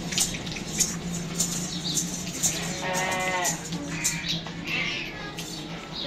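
A Kamori goat bleats once about halfway through, a short trembling call, over a steady low hum and a row of sharp clicks about every half second.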